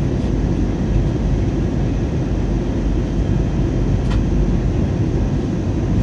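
Steady cabin noise of an Airbus A320 airliner in flight during its arrival descent: a constant rumble of engines and airflow, heard from inside the passenger cabin and heaviest in the low end.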